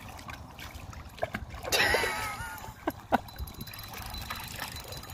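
German wirehaired pointer wading through shallow lake water, splashing as she goes. About two seconds in there is a brief wavering, high-pitched cry, followed by a couple of sharp splashes.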